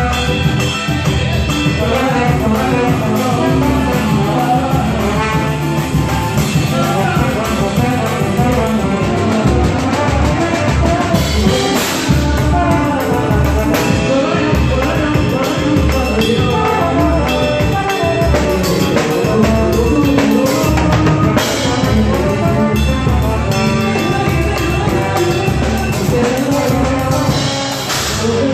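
Live samba band playing: a slide trombone plays the lead melody over a drum kit with cymbals and percussion.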